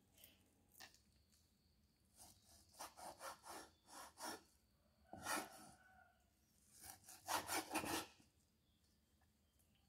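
Cleaver blade slicing through raw meat and scraping against a wooden chopping board, in quick back-and-forth sawing strokes that come in three bursts.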